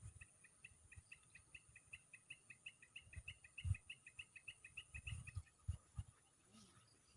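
A small animal calling: a fast, even series of short chirps, about five a second, stopping about five and a half seconds in, with a few soft low thumps.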